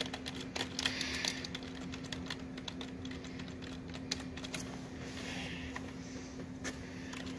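Typing on a keyboard: quick light clicks and taps, thickest in the first two seconds and sparse after, over a faint steady hum.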